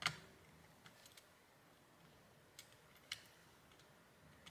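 Near silence broken by a few faint, sharp clicks and taps of small parts and a tool being handled over a laptop circuit board while a part is lined up for fitting; the sharpest click comes right at the start.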